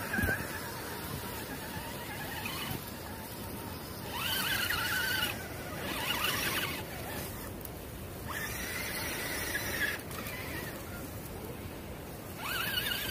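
High, wavering electric motor and gear whine of Axial Wraith 2.2 RC rock crawlers, coming in several bursts of a second or two.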